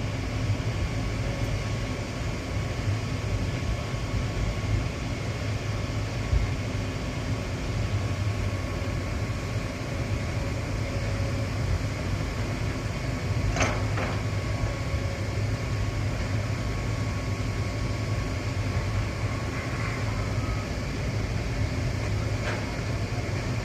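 Engine of a piece of heavy equipment running steadily with a low, even rumble. There are two short knocks, one about halfway through and one near the end.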